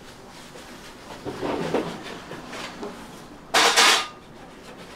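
Bread dough being handled by hand on a plastic-topped work table: soft rubbing, then a loud, sharp noise lasting about half a second, some three and a half seconds in.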